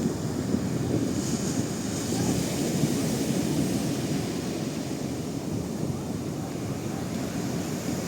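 Steady low rush of sea waves, with wind buffeting the microphone.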